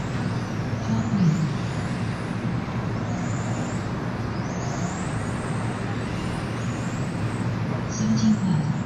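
Several 1/10-scale electric RC touring cars lapping a carpet track: high-pitched electric motor whines rise and fall again and again as the cars accelerate and brake, over a steady hiss.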